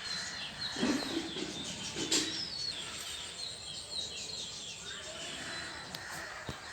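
Small birds chirping: many short, quick falling chirps repeating throughout, with a sharp click about two seconds in.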